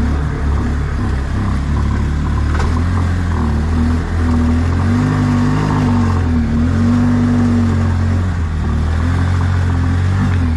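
A motor vehicle's engine running steadily, its pitch dipping and rising slightly about midway through.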